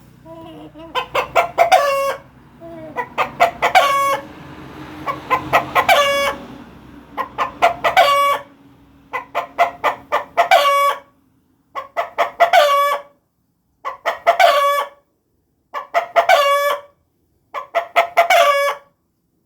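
Chicken calls used as a lure (pikat), repeated about nine times roughly every two seconds. Each call is a quick run of short clucking notes ending on a held, crow-like note.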